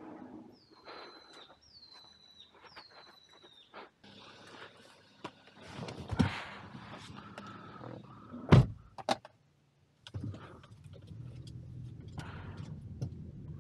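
Three short falling chirps a second apart, then rustling and knocks as someone gets into a car. The driver's door shuts with a loud thunk about two-thirds through, and the car's engine then runs at a steady idle.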